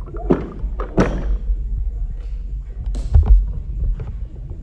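Knocks and clanks from a loaded barbell and its rubber bumper plates being handled, with a heavy low thud about three seconds in.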